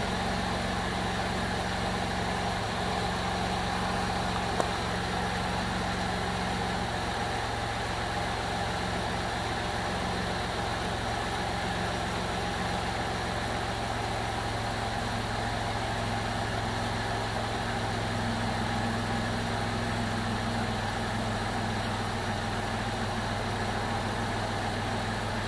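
Freshly swapped Chrysler 3.7-litre V6 in a 2002 Jeep Liberty idling steadily, running smooth.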